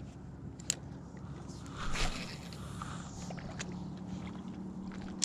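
Handling of a spinning rod and reel: a brief swish about two seconds in and a sharp click near the end, over a faint steady hum.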